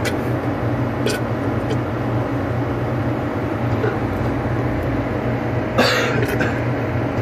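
Steady low mechanical hum, with a couple of faint clicks and a short louder sound with a falling pitch about six seconds in.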